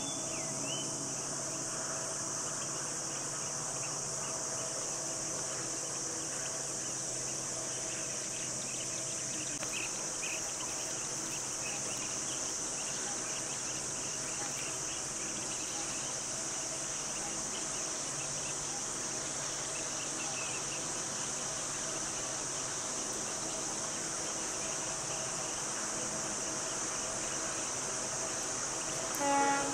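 Chorus of forest insects: a steady, high-pitched drone that holds unchanged throughout.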